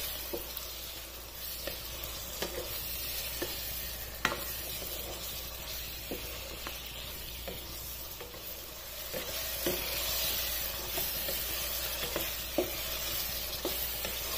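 Mutton pieces with ginger-garlic paste, spices and green chillies sizzling steadily in oil in a non-stick wok while a wooden spatula stirs them, giving soft scattered taps against the pan, one sharper tap about four seconds in. This is the frying (bhuna) stage of the masala.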